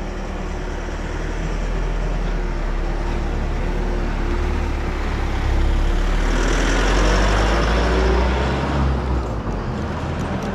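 Road traffic: a steady low rumble, with a motor vehicle passing close by that swells from about five to nine seconds in and then fades.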